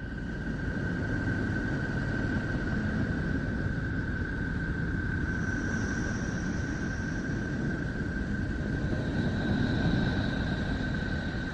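A space sonification presented as the sound of planet Neptune: a steady, rumbling wash of noise with a high steady tone held above it. Fainter, higher tones come in around the middle and again near the end.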